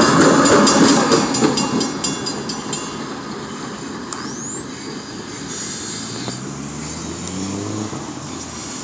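The rear distributed-power locomotive of a stack train, a BNSF ES44AC, passing close by with wheel clatter and rumble, fading away over the first few seconds as the train recedes. Near the end a low engine note rises in pitch.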